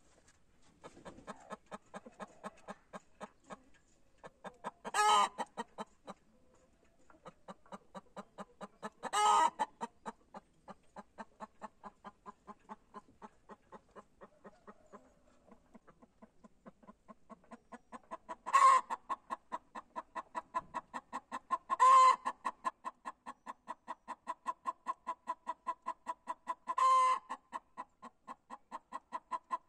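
Hen cackling on the nest: a fast, steady run of clucks, broken five times by a loud, drawn-out squawk. This is the egg song hens give around laying.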